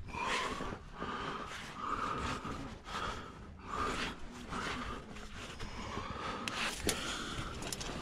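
A climber breathing hard from the effort of climbing, with rough, noisy breaths about one a second. A couple of sharp clicks come near the end.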